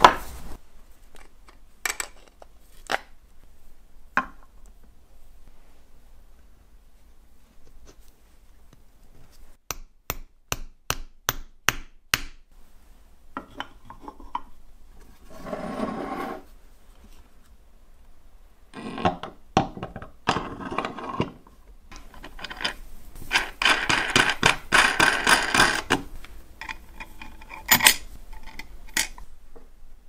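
Hand-tool workshop sounds: a quick run of about eight light taps, roughly three a second, then several stretches of rubbing or scraping. The longest stretch lasts about three seconds. Scattered sharp clicks come in between.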